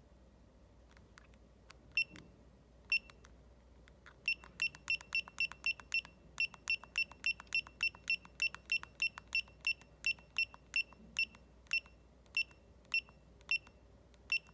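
Key-press beeps from a Retekess wireless restaurant pager unit whose buttons are pressed repeatedly to scroll through characters while it is being set up. There are two single high beeps, then a quick even run of about three a second from about four seconds in, spacing out toward the end.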